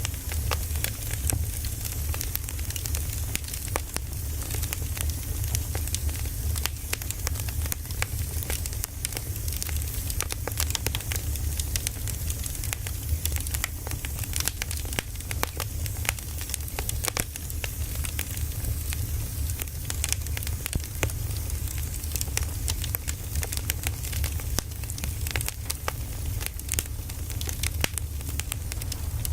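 Firewood burning, crackling and popping in quick irregular snaps, over a steady low rumble.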